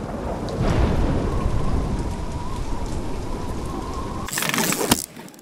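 Thunderstorm sound effect: heavy rain with low rumbling thunder, swelling up at the start. About four seconds in it gives way to a short, sharper burst of hiss that cuts off near the end.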